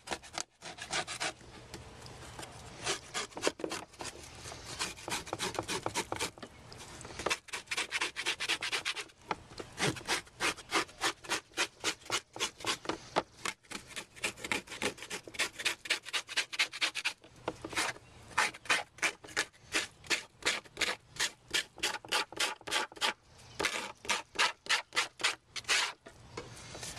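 A scraper rubbing algae off an algae scrubber screen in rapid repeated strokes, about three a second, in several runs with short breaks.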